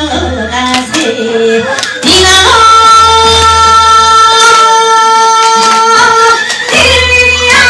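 A woman singing a traditional Korean song into a microphone, with short phrases at first and then one long note held for about four seconds.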